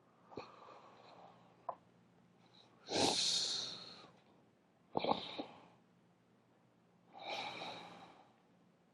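Deep, slow breaths in and out, four audible breaths about two seconds apart, paced to a squatting exercise: breathing in on the way down and out on the way up.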